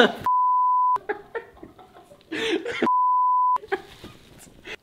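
Two censor bleeps, each a steady single-pitch beep just under a second long, about two and a half seconds apart, cutting over a voice, with short bits of talking or laughing between them.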